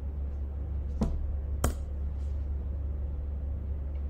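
Two sharp keystrokes on a computer keyboard about half a second apart, the second louder, sending a typed message, over a steady low electrical hum.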